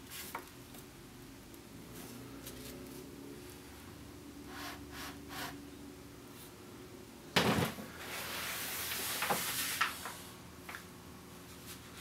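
Light taps and knocks from a child painting at a wooden easel, paintbrushes against the paper and the paint tray. A sharp knock comes about seven seconds in, followed by a couple of seconds of scratchy brushing with a few more clicks.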